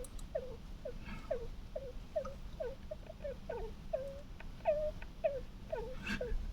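A small pet snoring: a quick run of short, squeaky sounds, each falling in pitch, about two or three a second.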